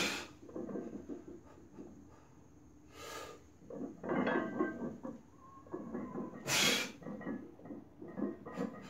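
A man's heavy breathing and strained grunts under a very heavy barbell back squat: a sharp, forceful breath at the start, another about three seconds in, and a loud one near seven seconds in, with groaning effort in between as he grinds through the reps.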